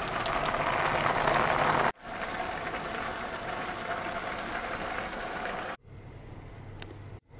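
Stainless-steel pot of water at a rolling boil with noodles cooking in it, bubbling with a steady hissing churn. The bubbling breaks off abruptly near the end, leaving a quieter low hum.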